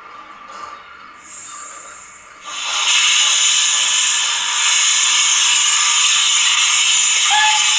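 Youchoos steam sound on a Zimo decoder, played through the built-in speaker of an OO-gauge Johnson 1P model locomotive: a steam hiss effect. A thin high hiss comes in about a second in, then a loud steady hiss from about two and a half seconds in.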